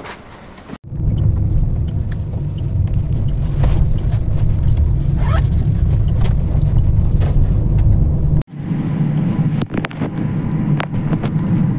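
Car cabin noise in a moving taxi: a steady, loud, low road and engine rumble. It drops out for an instant about a second in and again near the end of the first eight seconds. A few sharp clicks come about ten seconds in.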